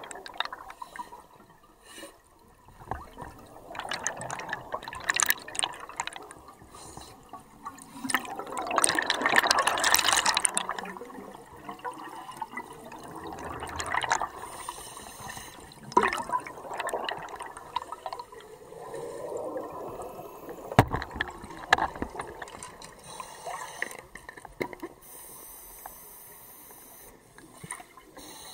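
Scuba diver's exhaled bubbles from the regulator, heard underwater as repeated bursts of bubbling a few seconds apart, the longest around ten seconds in. A few sharp clicks stand out.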